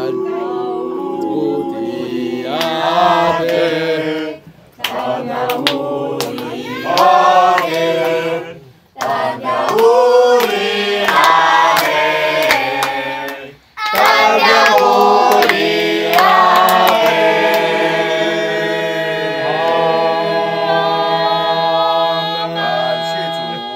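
A group of people singing a song together, ending on long held notes.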